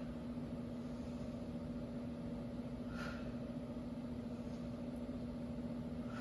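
A steady low hum, with a short sharp breath from a person squatting under load about three seconds in and again at the end, one breath per repetition.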